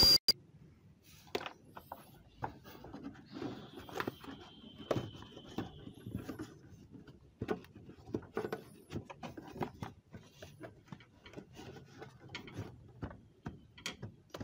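Handling noises as a new panel air filter with a plastic frame is set into a plastic engine airbox: scattered light taps, clicks and knocks with soft rubbing and scraping of plastic against plastic.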